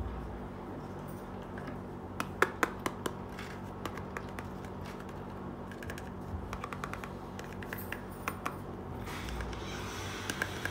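Hard plastic toys clicking and knocking as they are handled: a toy hair dryer and a yellow plastic toy stove being picked up, set down and turned in the hands. There are scattered sharp clicks, a cluster about two seconds in and another past the middle, over a steady low hum, with softer rustling near the end.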